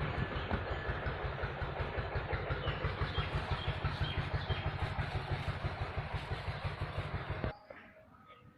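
A small engine running with a steady, rapid low pulse, stopping abruptly near the end. Faint bird chirps sound over it.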